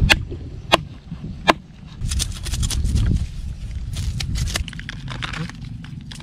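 Knife working on a mangrove snapper on a wooden board: a few sharp knocks in the first second and a half, then a quick run of scraping clicks from about two to four and a half seconds in, over a steady low rumble.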